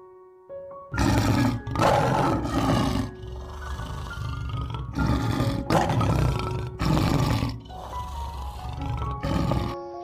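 Lion roaring: a series of about seven short, coarse roars starting about a second in, over soft piano music.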